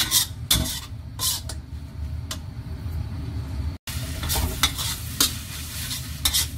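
Metal spatula scraping and clacking against a stainless steel wok, stirring vegetable filling that sizzles as it fries. The strokes come at irregular intervals, with a momentary cut-out just before four seconds in.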